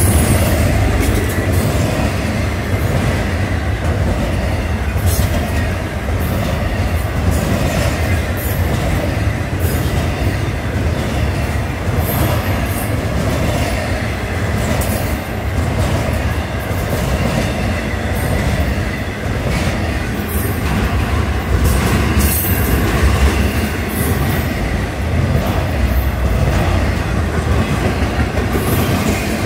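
Florida East Coast Railway intermodal freight train passing close by: a steady rumble of steel wheels on the rails as well cars loaded with stacked containers and trailers roll through, with scattered clicks as the wheels cross rail joints.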